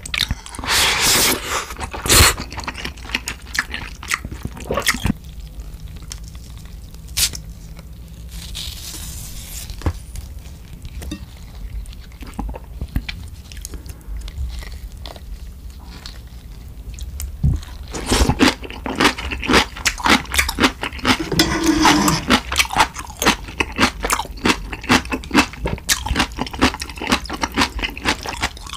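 Close-miked eating: a slurp from a ladle of ramen broth and noodles about a second in, then wet crunching and chewing of napa cabbage kimchi, with scattered crunches at first and rapid, dense crunching over the last ten seconds.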